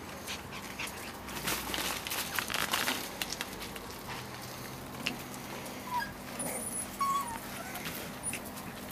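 Puppies wrestling on paving, with scuffling and rustling in the first few seconds, then a couple of short, high squeaks about six and seven seconds in.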